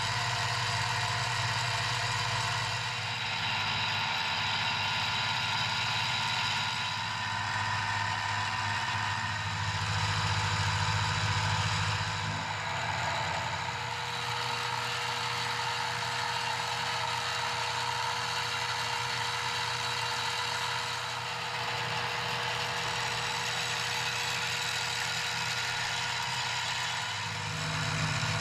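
X2D mini milling machine running, its end mill cutting a steel bar held in the vise: a steady motor and gearhead whine with cutting noise over it. The low hum drops away and comes back a few times.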